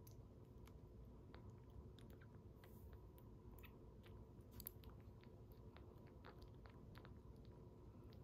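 Faint wet smacking clicks of a very young kitten suckling milk from a bottle nipple, coming irregularly a few times a second over a low steady hum.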